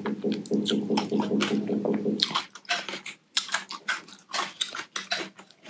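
Naengmyeon noodles slurped into the mouth, over a low hum for about the first two seconds, then close-up wet chewing and lip-smacking in short, irregular clicks.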